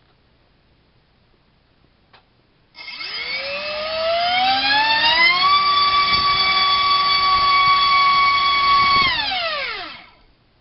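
Multistar Viking 1808 2600kV brushless outrunner motor spinning a Dalprop Cyclone 5045 three-bladed prop on a 3S battery. About three seconds in it spools up with a rising whine, holds one steady high pitch for several seconds, then winds down with a falling whine near the end.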